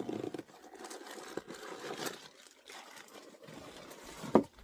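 Rustling and handling of gear being rummaged in a camping pack, with a few small clicks and one sharp knock a little over four seconds in.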